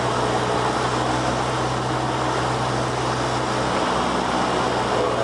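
Cabin noise of a light Cessna in flight: the piston engine and propeller drone steadily under a constant rush of air.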